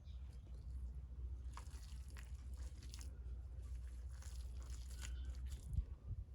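Hands mixing damp soil into mud, giving irregular gritty scrapes and crackles over a steady low rumble.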